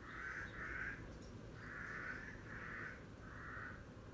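A bird's harsh calls, five in a row, each about half a second long and coming in loose pairs.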